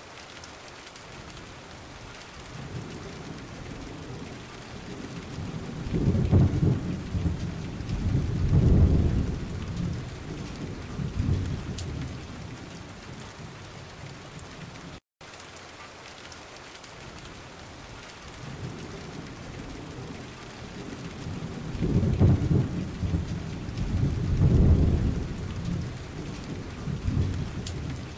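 Steady rain with two long rolls of thunder, one about six seconds in and another about twenty-two seconds in. The audio cuts out for an instant near the middle.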